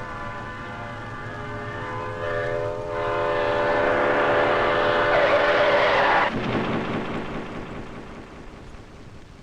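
Diesel locomotive air horn sounding a steady multi-note chord over the rumble of an approaching train, growing louder, then cut off suddenly about six seconds in, leaving a fading rumble.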